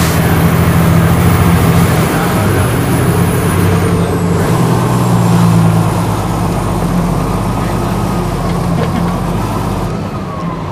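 Fire engine's diesel engine and road noise heard from inside the cab while driving, a steady low drone that eases off a little in the second half.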